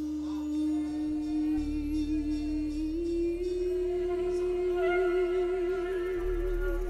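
Slow worship music: one long held melody note that steps up a little about three seconds in and wavers near the end, over a steady low sustained bass.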